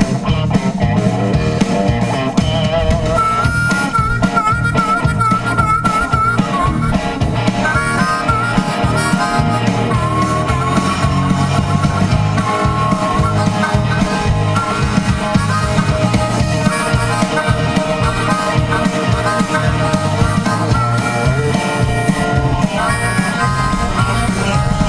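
Live rock band playing an instrumental break: a wavering harmonica solo over electric guitar, bass guitar and drums.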